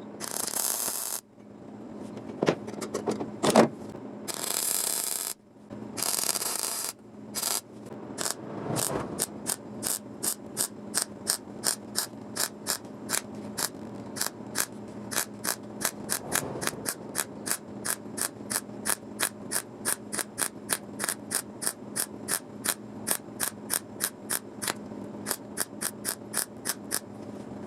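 Metal tool work on a car's body panels: a few short rushes of noise, then a long, even series of sharp mechanical clicks, about three a second.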